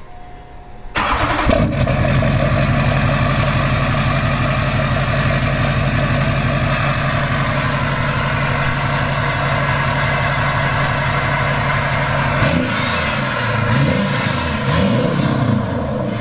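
Duramax 6.6-litre V8 turbo-diesel starting about a second in on its first start after a new lift pump was fitted and the fuel system primed, then idling steadily through its exhaust. Near the end its note wavers up and down a few times.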